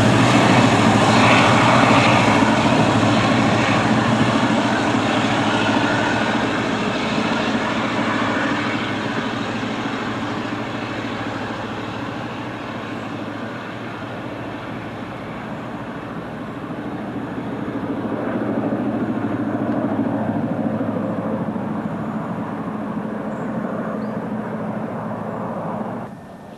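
SNCB GM diesel locomotive engine running with a steady low hum, loud at first, easing off, then growing louder again, and cutting off suddenly near the end.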